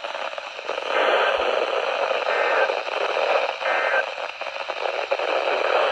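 Static hiss from a NOAA Weather Radio receiver between spoken alerts, the weak signal's noise swelling louder about a second in.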